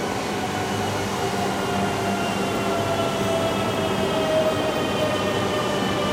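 JR East E2 series Shinkansen train moving past slowly over a steady rumble of wheels on rail. Its traction motors whine in several tones that fall gradually in pitch, the sign of the train slowing down.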